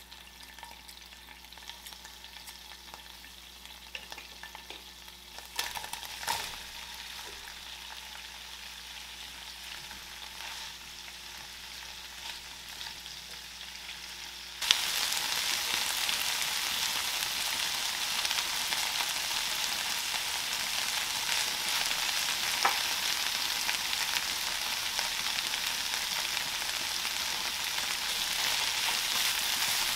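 Oil sizzling gently in a frying pan with anchovies and chili flakes, with a few light utensil clicks. About halfway through, the sizzling turns much louder and stays loud as chopped cabbage is stir-fried and stirred in the pan.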